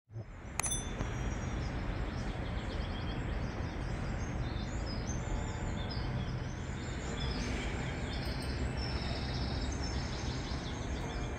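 City ambience: a steady low rumble of distant traffic with many birds chirping over it. A sharp click sounds about half a second in.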